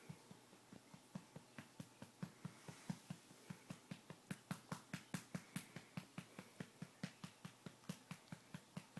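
A hand patting a baby's back to bring up a burp: a steady run of soft pats, about four a second.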